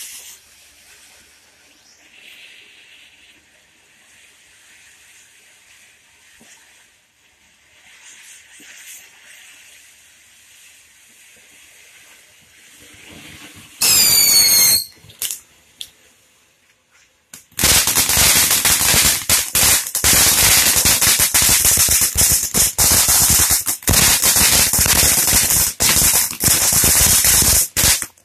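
Dream Flower Fountain ground firework burning: a faint hiss of spraying sparks, then a brief loud whistle about halfway through. A few seconds later comes about ten seconds of loud, dense crackling, which stops just before the end.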